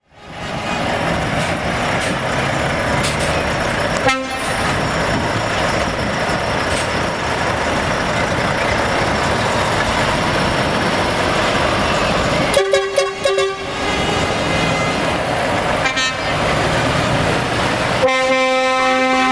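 Heavy diesel trucks, Volvo FH tractor units, driving past slowly in convoy with their engines running steadily. Their horns sound four times: a brief toot about 4 seconds in, a blast of about a second around the middle, another brief toot, and a long blast near the end.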